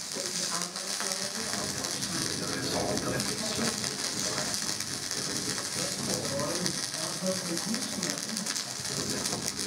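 Live laptop electronic music: a dense, steady texture of fine crackling clicks, with warbling fragments of processed voice beneath.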